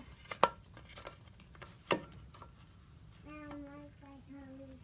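Aluminium pressure cooker lid knocking and clinking against the pot as it is handled and fitted on: a few sharp metal clicks, the loudest about half a second and two seconds in. A voice is heard faintly in the background near the end.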